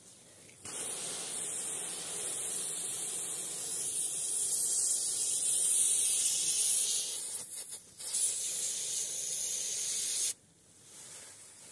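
Aerosol can of throttle body cleaner hissing as it is sprayed through its straw into a tied plastic bag of trapped wasps. It gives one long burst of about seven seconds, breaks briefly, then gives a shorter burst that cuts off suddenly.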